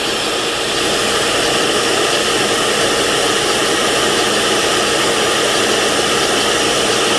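Shop vacuum and small lathe running steadily, a graphite glassblowing tool spinning against sandpaper while the vacuum pulls away the graphite dust.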